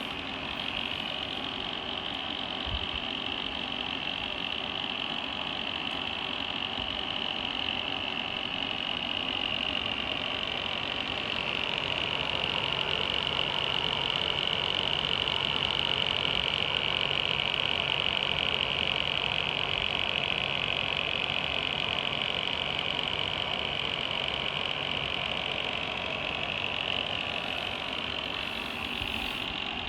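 GameMax GM-1350 1350 W power supply's fan running with a steady, high-pitched noise that grows louder toward the middle and then eases. The owner takes the noise for the fan hitting something, perhaps a wire.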